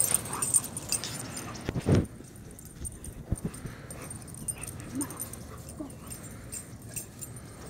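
Dogs playing, with brief whines and yips. Busiest in the first two seconds, with one louder low sound about two seconds in, then quieter.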